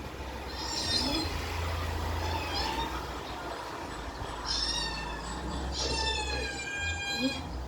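Recorded cat meows played through a phone speaker: a few short meows, then a longer drawn-out meow near the end, over a steady low hum.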